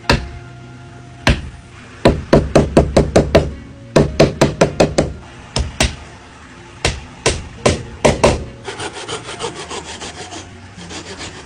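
Wooden plugs being driven into their holes with a hammer, sharp knocks on wood coming in quick runs of about four or five strikes a second. Near the end, fast, softer rubbing strokes on the wood follow.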